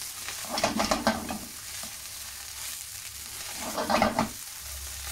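Pork fried rice sizzling in a hot pan, with two short bouts of a utensil stirring and scraping through the rice, the first about half a second in and the second about four seconds in.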